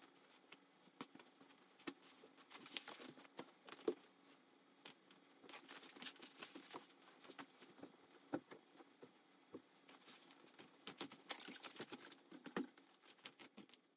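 Faint rustling of a cloth blanket being gathered up and soft footsteps on a padded floor mat, heard as an irregular scatter of light taps and clicks.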